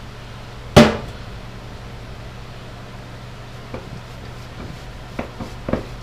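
A single sharp knock about a second in, then a few faint soft clicks and rustles as a shop rag is wiped over a riding mower's rear axle, over a steady low hum.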